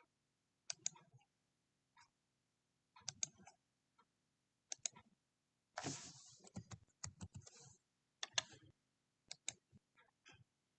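Scattered sharp clicks and taps of a computer keyboard and mouse, in small clusters about once a second, with a denser run of clatter and rustle from about six to eight seconds in.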